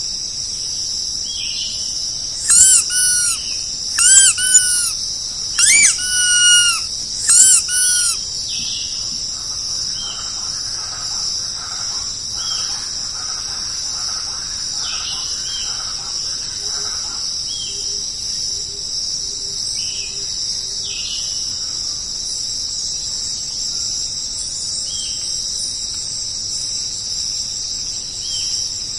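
A steady high-pitched insect chorus. Between about two and eight seconds in, four loud high calls sound out in quick pairs, each one bending down in pitch at its end.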